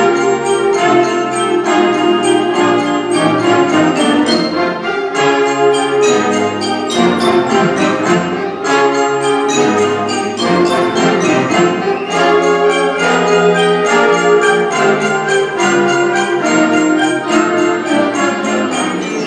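Middle school symphonic band playing live in a school gymnasium: clarinets and other woodwinds with brass, moving together in quick, even notes.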